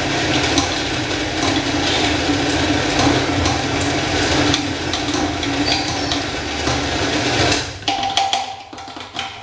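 Countertop blender running steadily, puréeing the porra mixture in its jar, then switched off about eight seconds in; a few clinks and knocks follow.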